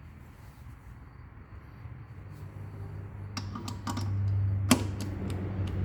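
Scattered sharp clicks and knocks over a low hum that grows louder from about halfway through.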